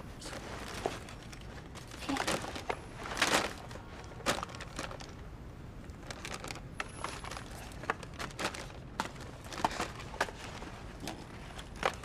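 Plastic snack packets crinkling and rustling as they are handled, with scattered light clicks and taps. The rustling is strongest about two to three and a half seconds in.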